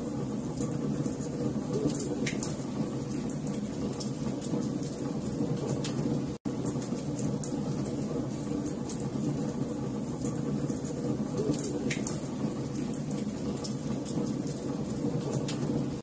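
Wood fire of stacked logs burning: a steady low rush of flame with frequent sharp crackles and pops from the wood. The sound cuts out for an instant about six seconds in.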